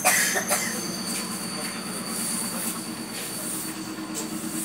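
Inside a suburban electric train at a platform: the steady hum of the train's equipment with a thin, high, steady whine, and a short knock right at the start.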